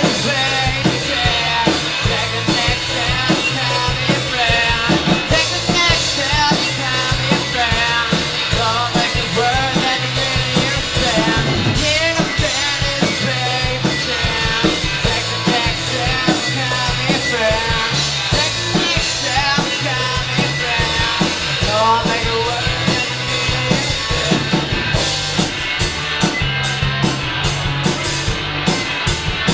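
Three-piece punk rock band playing live: electric guitar, bass guitar and drum kit, loud and continuous. Near the end the sound turns choppy, in short repeated hits.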